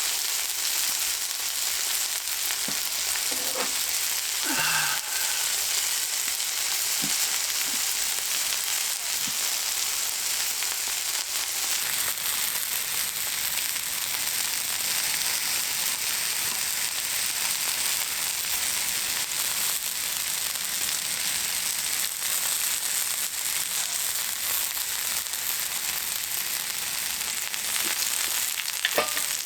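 Food frying on a hot cooking surface, a steady sizzle, with a few light knocks and clinks about three to five seconds in and again near the end.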